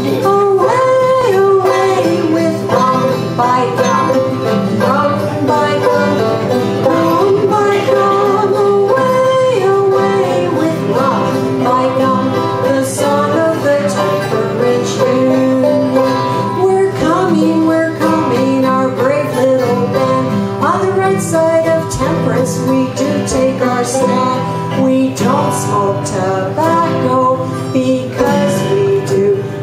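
Live acoustic band playing a song: singing voices, a woman's among them, over strummed acoustic guitar and banjo.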